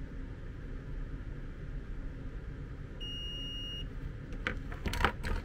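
Digital multimeter in continuity mode giving one short, high, steady beep, under a second long, as its probe touches a connector pin: the wire being tested connects to that pin. A few sharp clicks and taps from handling the probes and plastic connector follow near the end.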